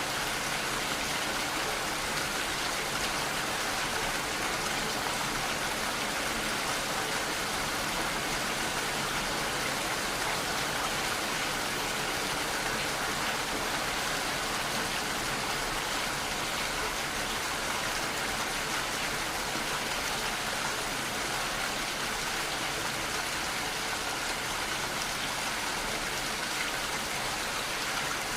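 Steady rainfall, an even hiss of raindrops with no thunder or other events.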